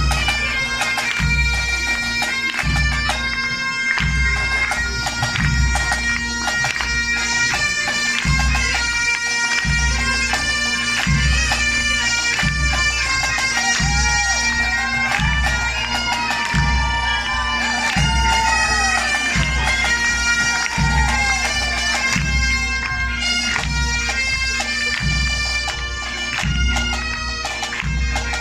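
Breton bagad (pipe band) playing a tune on bagpipes over their steady drone, with a bass drum beating about once every second and a half.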